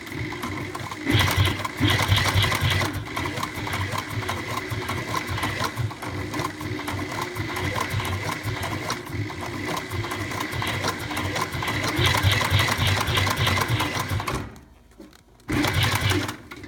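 SEWPRO 204-PB-2 two-needle post-bed sewing machine running at speed, with a rapid, even stitch rhythm. It stops about fourteen and a half seconds in, then runs again briefly near the end.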